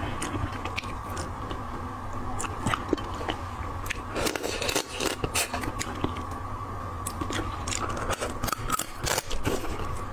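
Crab shell cracking and crunching in irregular clicks as pieces of crab are broken apart by hand, then bitten and chewed, picked up close on a clip-on microphone over a steady low hum.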